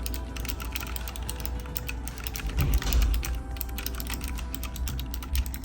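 Rapid typing on a Keychron K1 keyboard fitted with blue optical switches: a fast, continuous run of key clicks, with background music.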